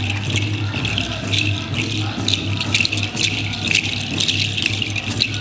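A rattle shaken in quick, uneven strokes, over a steady low hum.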